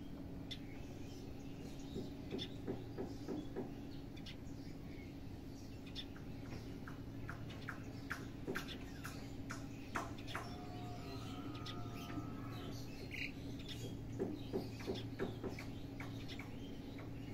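Small birds chirping: clusters of quick short chirps that come and go, over a steady low hum.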